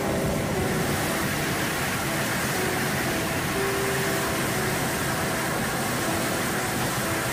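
Steady, unbroken noise of a hovering helicopter's engine and rotor, heard from inside the cabin at the open door.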